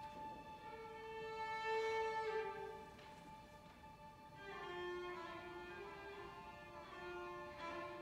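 Orchestra playing slowly, led by bowed strings: one high note is held throughout while lower sustained notes move slowly beneath it, swelling about halfway through.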